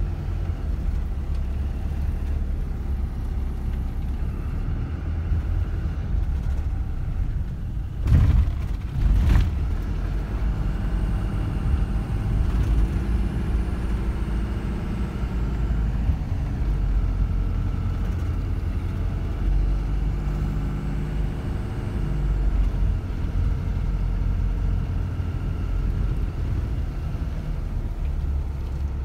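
Car driving along a winding road, heard from inside the cabin: a steady low rumble of engine and tyres, with two loud thumps about eight and nine seconds in.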